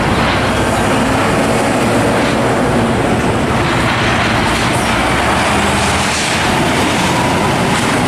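Hino SG 260 TI fuel tanker truck driving by on a road: its diesel engine running under steady tyre and traffic noise.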